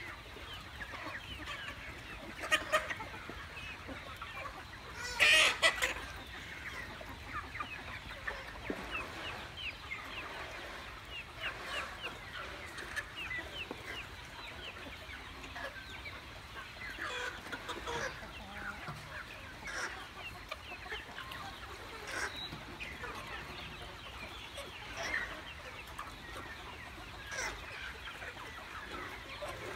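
A large flock of young Khmer native chickens clucking and peeping without a break, many short calls overlapping, with one louder, harsher burst about five seconds in.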